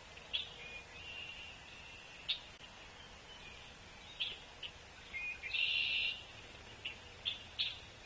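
Small songbirds calling outdoors: scattered short chips and brief notes, with one louder, rougher call lasting most of a second about five and a half seconds in.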